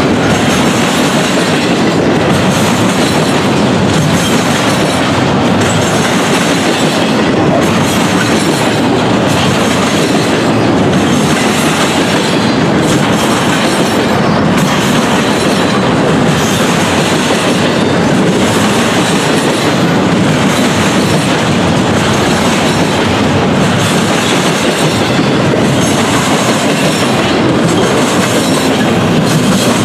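A Norfolk Southern double-stack intermodal train's well cars roll past at close range: a loud, steady rumble of steel wheels on rail. Repeated clacks come roughly every second or so as wheelsets cross the track joints and the diamond crossing.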